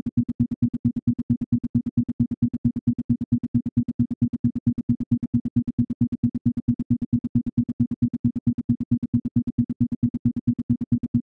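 Isochronic tone: a low synthesized tone pulsing fully on and off in even, rapid beats several times a second.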